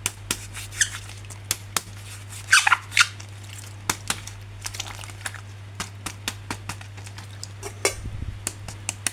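Hard plastic action figure and packaging being handled: an irregular run of sharp plastic clicks, with a few short squeaks, the loudest a falling squeak about two and a half seconds in.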